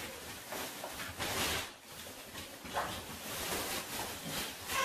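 Oxford fabric of a folded camping chair rustling in several brief swishes as it is handled and tucked together.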